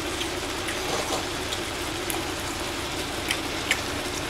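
Pot of galbitang (beef rib soup) simmering on a tabletop burner: a steady bubbling hiss, with a couple of light clicks near the end.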